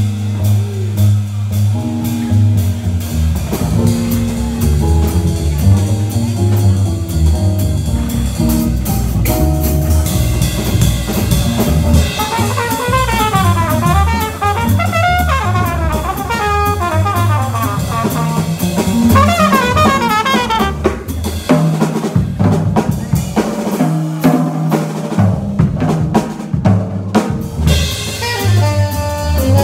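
Live small-group jazz: double bass and drum kit swinging, with fast trumpet runs rising and falling about halfway through. Near the end the bass drops out for a short stretch of drums alone, and a tenor saxophone comes in at the very end.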